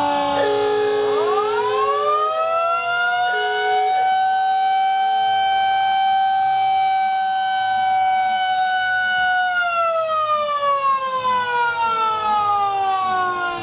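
A siren winding up over about three seconds, holding a steady wail, then winding slowly down from about ten seconds in. A second, lower steady tone sounds on and off in the first few seconds.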